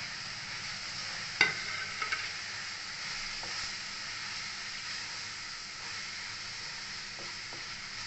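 Spiced onion-tomato masala sizzling steadily in oil in a kadhai as a spatula stirs and scrapes it, the masala being fried until the oil separates. The spatula knocks sharply against the pan once, about a second and a half in.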